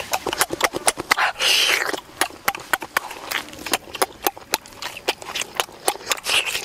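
Close-up mouth sounds of someone eating braised pig's head: a quick, uneven run of wet smacks and chewing clicks, several a second, with a longer noisy bite about one and a half seconds in and another near the end.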